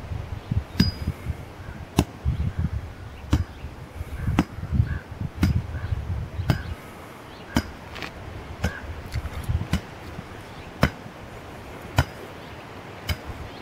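A long-handled digging tool striking hard soil over and over, about once a second, each blow a sharp clink, as ground is broken for a planting hole.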